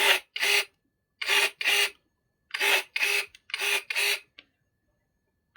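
Eight short rasping scrape strokes, in pairs about half a second apart, with short pauses between the pairs.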